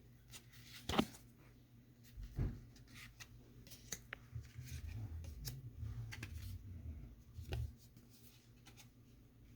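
Faint rustling and scraping of a foil trading-card booster pack and its cards being handled and opened, with a few sharp clicks.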